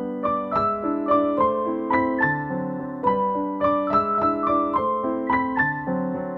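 Background music: a keyboard melody of struck notes that fade, about three a second, over lower held chords.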